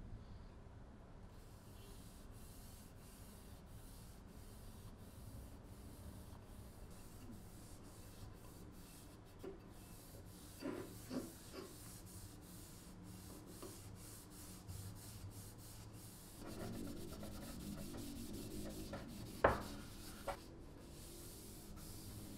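A cotton pad rubbing oil into a carved wooden tomahawk handle, a faint soft rubbing. There are a couple of light knocks about halfway through and a sharp knock near the end as the handle is handled on the table.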